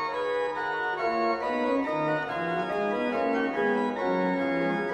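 Background organ music: held notes that change every half-second to a second in a slow melody over sustained chords.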